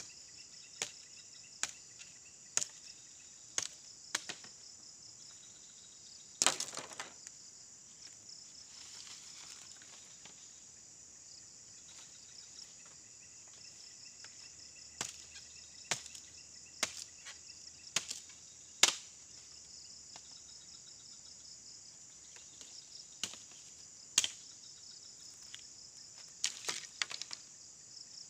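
Dry bamboo stems and brush cracking and snapping as they are pulled and broken: about fifteen sharp, irregular cracks, one longer crackling break about six seconds in. Steady high insect chirping underneath.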